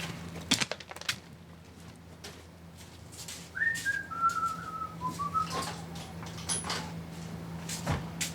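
A person whistling a short tune of a few notes that step downward, partway through. Scattered light knocks and clinks from handling parts come before and after it, with a steady low hum underneath.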